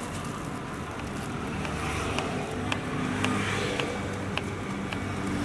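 Knife blade tapping on a wooden cutting board as it slices through a peeled green mango, sharp clicks about every half second, over the steady drone of street traffic.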